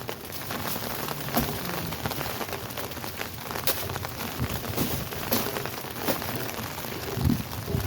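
Heavy rain pouring down steadily, with a handful of sharp knocks and taps scattered through it.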